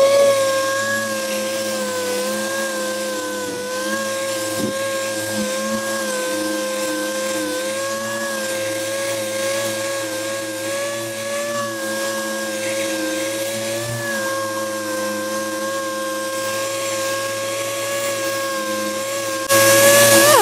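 Random orbital sander with a 180-grit disc running steadily against a car body panel, feather-edging a body-filler repair: a steady whine that wavers slightly as it is worked. Near the end a louder rushing noise cuts in.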